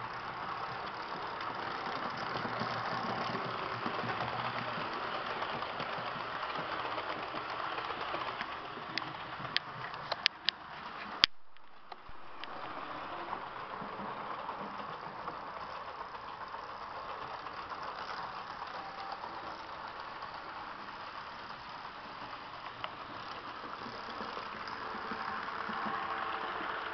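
H0-scale electric model trains running: a steady whirr of small motors and wheels rolling on track, with a few sharp clicks about ten seconds in. The sound drops out abruptly for under a second a little past the middle.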